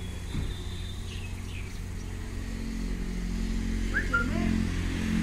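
Engine running steadily with a low hum that grows louder over the last two seconds, with a few short high chirps about four seconds in.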